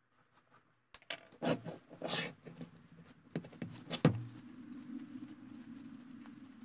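Cast-iron lathe top slide and its steel parts handled on a steel workbench: clicks, knocks and scraping of metal on metal, then a sharp metal knock about four seconds in. After the knock a low steady tone lingers and slowly fades.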